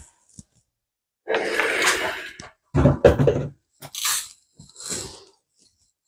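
Handling sounds at a sewing table as the iron is set aside and things are moved about: a long breathy hiss about a second in, then a few low knocks and short crinkly rustles.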